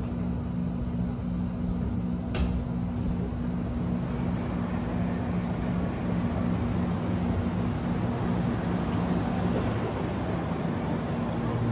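Steady rumble of city traffic with a low droning mechanical hum underneath, and a single click about two and a half seconds in.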